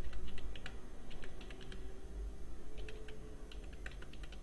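Typing on a computer keyboard: quick runs of key clicks, with a short pause midway.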